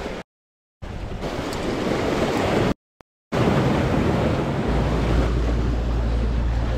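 Sea waves surging and washing against breakwater rocks, with wind buffeting the microphone. The sound cuts out completely twice in the first three seconds, and a heavy low wind rumble sets in about two-thirds through.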